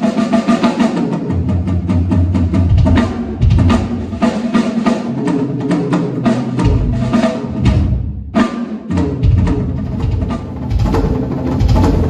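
A drum kit played in a busy groove: PDP Pacific Maple drums with a Sonor Vintage snare, kick and toms under Zildjian K Custom and Sabian HHX hi-hat, crash and ride cymbals. The playing stops briefly about eight seconds in and then picks up again.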